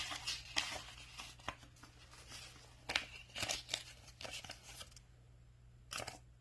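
Paper banknotes (Brazilian real notes) crinkling and flicking as they are handled and counted, in irregular bursts of rustling that thin out about five seconds in, with one last short rustle near the end.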